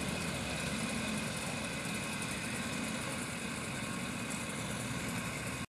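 Several vintage two-stroke moped engines running together at idle, a steady mix of small engines.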